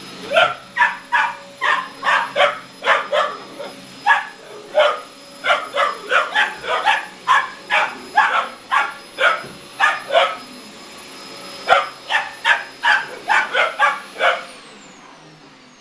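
Boxer puppies, 17 weeks old, barking repeatedly in short sharp barks, about two to three a second with a short pause two-thirds of the way through, at a running hoover. Under the barking a steady high whine from the vacuum cleaner winds down as the barking stops near the end.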